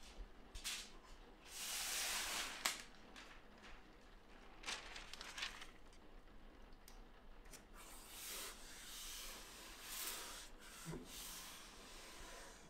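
Sheet of hybrid transfer paper rustling and sliding as hands position and smooth it on the press platen: a series of short, faint rustles, the longest about two seconds in.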